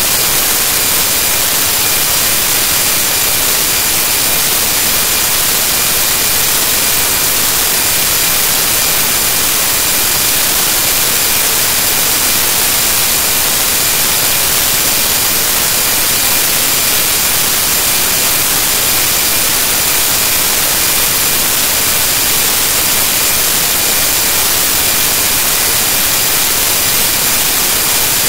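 Loud, steady static hiss, strongest in the treble, with a few faint steady high tones and no change throughout. It is digital noise from a corrupted audio track, not the sound of any real object.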